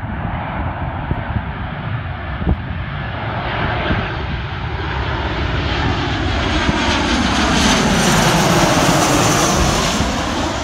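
Boeing 737-800 on short final passing low overhead, its CFM56 turbofan engines building from a distant rush to a loud jet rumble and whine that peaks about eight seconds in. As it passes over, a sweeping, phasing tone dips and then rises again.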